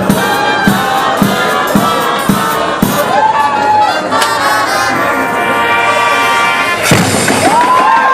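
Drum and bugle corps playing: brass bugles sounding sustained notes over regular drum strokes, with a loud full-band hit about seven seconds in followed by a high note swelling up and held.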